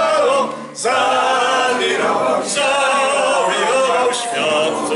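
A small group of men and women singing a Polish song together, accompanied by a nylon-string classical guitar.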